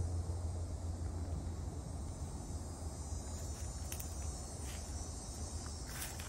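Forest ambience: a steady high chirring of insects over a low rumble, with a few faint clicks about two thirds of the way in and near the end.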